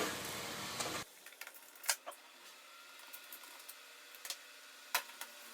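A few faint, sharp clicks and taps of small tools and parts being handled on a laptop, over quiet room tone that drops off suddenly about a second in.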